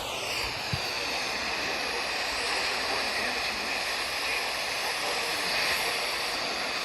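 Steady radio static hiss from a weather radio receiver between warning broadcasts, dropping slightly in pitch as it comes in and fading out near the end.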